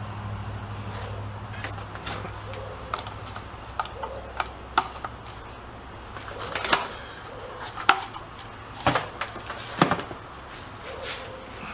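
Scattered clicks and knocks of electrical plugs being pulled from and pushed into a duplex outlet box and of a wet/dry shop vacuum being set in place, the sharpest knocks about eight to ten seconds in. A low hum fades out in the first two seconds.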